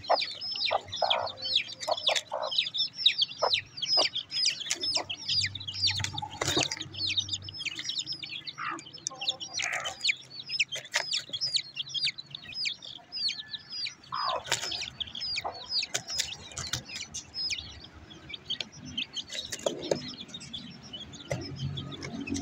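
Aseel chicks peeping: a fast, continuous run of short, high, downward-sliding peeps, several a second, with a few lower clucking notes mixed in.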